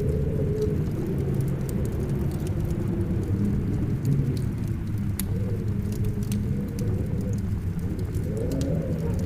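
Blizzard ambience: a steady low rumble of storm wind with a wavering, howling tone, overlaid with scattered sharp crackles from a wood fire.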